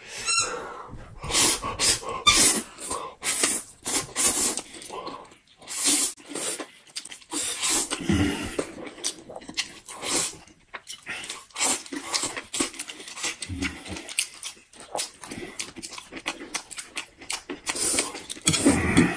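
Two people slurping and chewing noodles, with many short, irregular wet slurps and mouth sounds close to the microphone.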